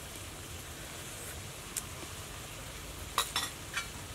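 Fish and baked beans frying in a wok, a steady sizzle, with a sharp metallic clink just under two seconds in and three more in quick succession near the end from a metal utensil.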